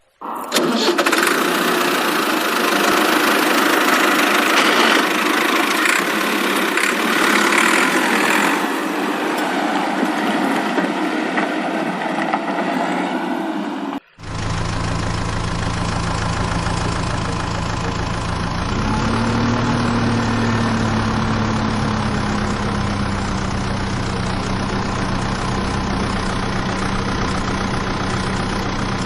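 Engine running steadily; about 14 seconds in it cuts off suddenly and a deeper, steady idle takes over, with a brief rise in pitch a few seconds later.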